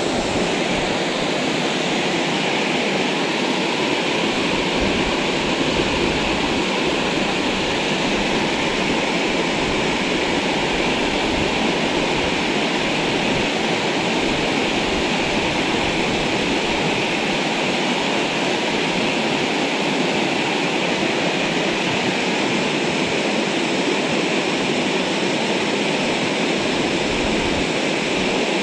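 Small waterfall running steadily, an even, unbroken rush of falling water.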